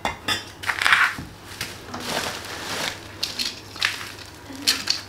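Plastic packaging being crumpled and pulled off a motorcycle exhaust header pipe: irregular rustling and crinkling in uneven bursts.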